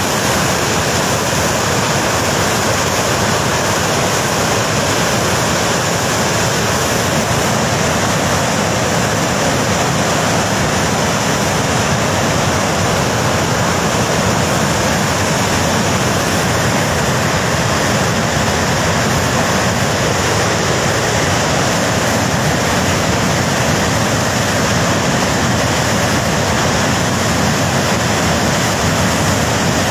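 Flash-flood torrent of muddy, debris-laden water rushing down a mountain river valley: a steady, loud rush of churning water.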